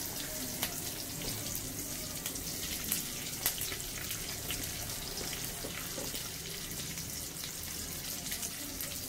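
Sliced onions, just added with cumin seeds to hot oil in a kadai, sizzling: a steady hiss with scattered small crackles.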